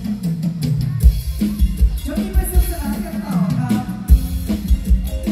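Thai mor lam band music: a drum kit keeps a steady beat with a heavy bass drum, and a sliding melody line comes in about two seconds in.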